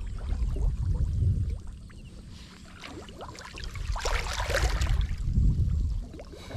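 Water splashing and dripping in short spells, busiest around four to five seconds in, over a low rumble on the microphone.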